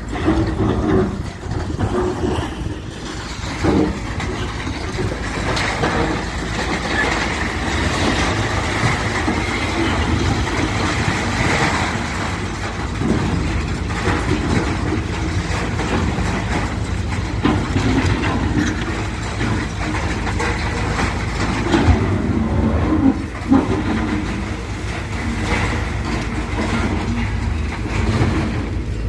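Heavy demolition machinery running steadily while a damaged house is torn down, with repeated knocks and crashes of breaking masonry throughout.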